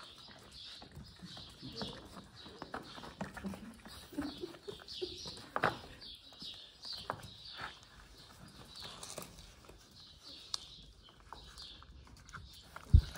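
Small birds chirping again and again, with scattered light knocks and a few low calls, and one loud thump near the end.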